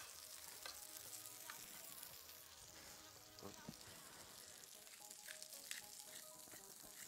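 Cèpe (porcini) mushrooms frying in butter in a pan: a faint, steady sizzle with scattered small pops.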